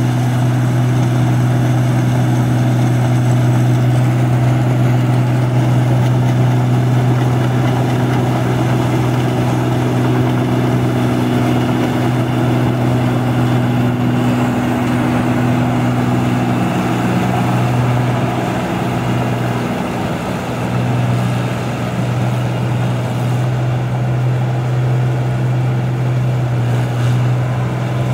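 Rice combine harvester running while it cuts and threshes: a loud, steady engine drone with the machinery, dipping briefly about twenty seconds in.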